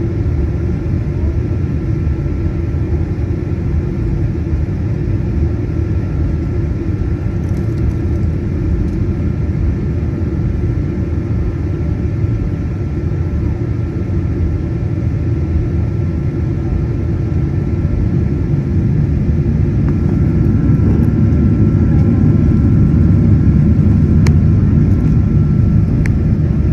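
Boeing 737-900ER cabin noise: a steady low rumble of engines and airflow with a faint steady whine, growing louder about two-thirds of the way in.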